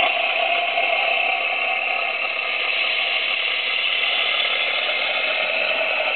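Zimo MX645 sound decoder in an LGB Davenport model diesel locomotive playing a steady whirring hiss through the model's small speaker, the locomotive's air compressor sound.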